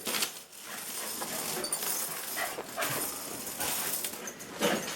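Dogs moving about close by, with faint whining and scuffling.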